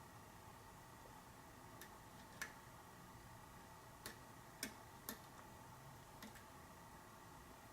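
Small, sharp metallic clicks from single-pin picking a pin tumbler lock: a pick working the pins under light tension, about half a dozen irregular ticks.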